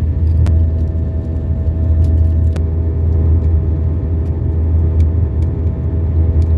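A steady, loud low rumbling drone, like an engine running, with a few faint clicks.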